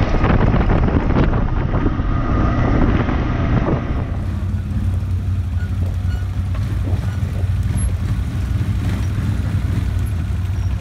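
ATV running along a gravel road with heavy wind noise on the microphone. About four seconds in this gives way to a parked Polaris Sportsman 800 ATV idling with a steady low hum.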